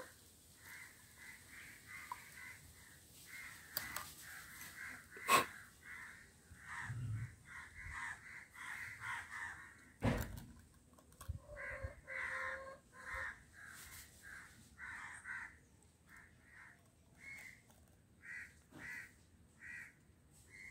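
Crows cawing over and over in short calls, with a sharp click about five seconds in and a thump about halfway through from the work at hand.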